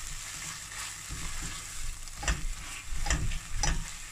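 Onion-tomato masala sizzling in hot oil and ghee in a stainless steel pressure cooker while a silicone spatula stirs it, with three sharper scraping strokes against the pan in the second half.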